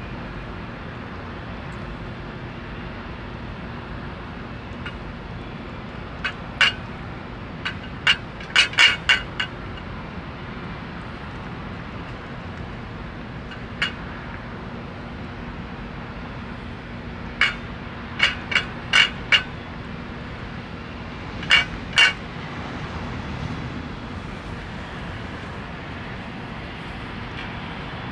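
Shallow stainless-steel bowl clinking under a calico cat's mouth as it laps and eats from it: several short clusters of quick, sharp metallic taps over a steady background hum.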